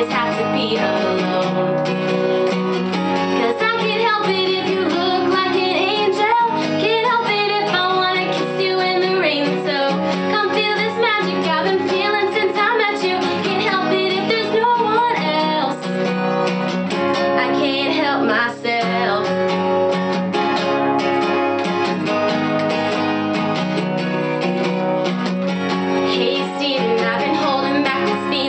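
A woman singing a pop-country song to her own strummed acoustic guitar.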